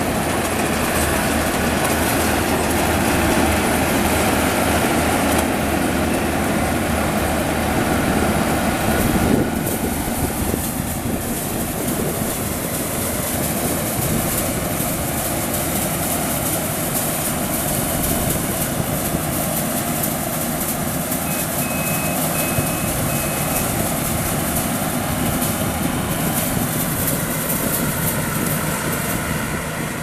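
Yanmar YH850 combine harvester running steadily, its diesel engine and threshing machinery going together. The sound shifts suddenly about nine seconds in.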